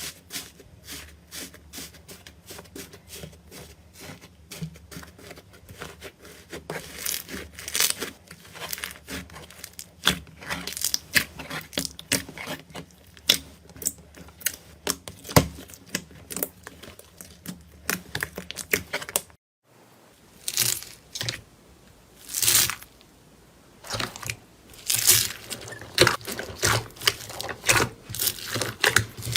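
Slime being pressed, stretched and pulled apart close to the microphone, giving rapid crackling clicks and small tearing pops. After a brief break about two-thirds of the way through, the handling resumes with slower, louder crackly squishes.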